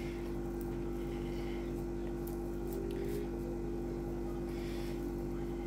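A steady low hum, with faint scraping and a few soft clicks from a fork mixing grated cheese into a foil-wrapped baked potato.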